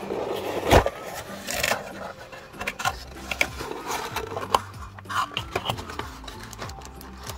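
Cardboard product box being opened and handled: a loud scraping rustle about a second in, then scattered taps, knocks and crinkling of the plastic-wrapped parts inside.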